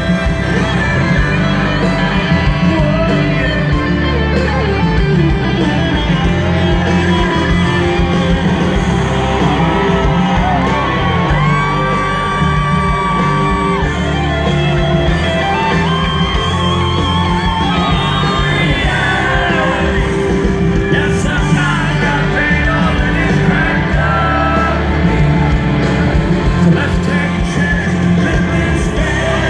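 Live country-rock band playing at full volume in a stadium, recorded from among the crowd on a phone's microphone, with the crowd singing and yelling along.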